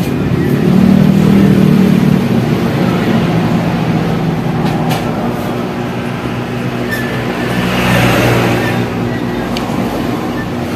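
Road traffic passing close by on a highway: a steady engine drone with road noise, swelling about a second in and again around eight seconds.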